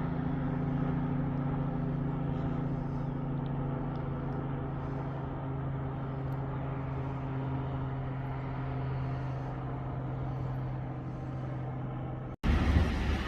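A vehicle engine running at a steady speed: a low, even hum with no change in pitch. It cuts off abruptly about twelve seconds in, and a louder rushing noise follows to the end.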